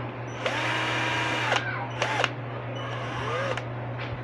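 Ingco 12V cordless drill motor run in three trigger pulls: a run of about a second, a short blip, then a shorter run whose whine climbs in pitch as it speeds up.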